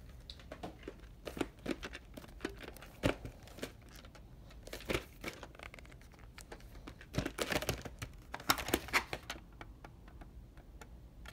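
Plastic clamshell VHS case being handled and opened, with the cassette inside: scattered clicks, taps and rustling in clusters, busiest early on and again a few seconds before the end.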